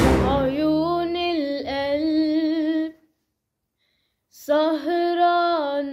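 A woman singing an Arabic song unaccompanied: a long held phrase with sliding, ornamented turns, a pause of about a second and a half, then a second held phrase.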